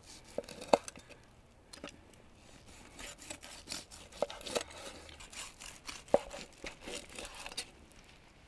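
A large chef's knife slicing through a fire-grilled, glazed piece of bear meat on a wooden cutting board: rough cutting noise through the meat with a handful of sharp taps as the blade meets the board.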